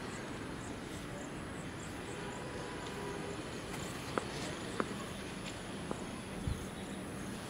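Steady open-air background noise, with a few faint sharp knocks about four to six seconds in as the cricket ball is bowled and struck by the bat.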